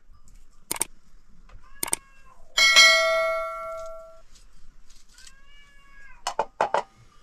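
A knife knocks against a stainless steel bowl, which rings and fades over about a second and a half, with a few sharp knife clicks on the metal near the start and again near the end. A cat meows once, about five seconds in.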